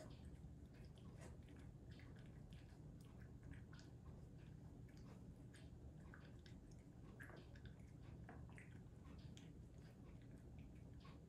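A cat eating wet canned turkey: faint, irregular chewing clicks.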